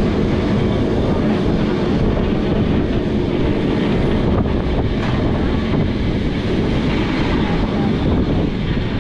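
Vintage Lisbon tram running along its rails, heard from on board at an open window: a steady rumble of the car and wheels on the track, mixed with wind rushing over the microphone.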